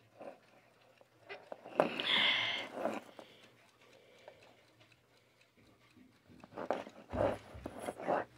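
Handling noise from a brass-cased wind-up alarm clock being moved and turned by hand on a wooden tabletop: irregular knocks and clicks, a brief scraping rush about two seconds in, and another cluster of knocks near the end.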